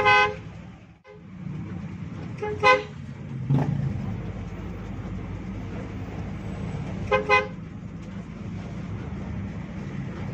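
A vehicle horn toots in short blasts: once at the start, again about two and a half seconds in, and as a quick double toot about seven seconds in. Under the horn runs the steady drone of a Hino RG bus's engine, heard from inside the bus.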